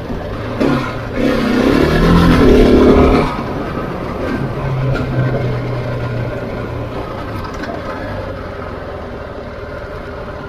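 Husqvarna 701 single-cylinder motorcycle engine revving up and down for about three seconds, then dropping to a steadier, lower run that slowly fades.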